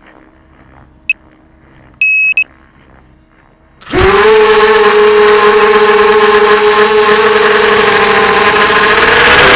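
Quiet at first, broken by a short electronic beep and then a longer two-tone beep, then about four seconds in the Diatone 250 quadcopter's brushless motors and propellers spin up sharply into a loud, steady, high whine that wavers slightly in pitch as the racer flies.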